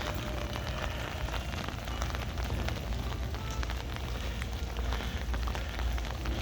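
Steady heavy rain falling, with many separate drops ticking close by, over a constant low rumble.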